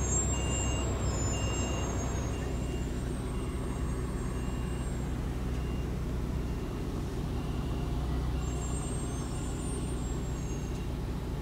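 Low, steady engine and road rumble heard from inside the cabin of an Infiniti G35 with its 3.5-litre V6, driving and then waiting in traffic. A regular high beep sounds about one and a half times a second and fades out by about halfway, and thin high squeals come at the start and again near the end.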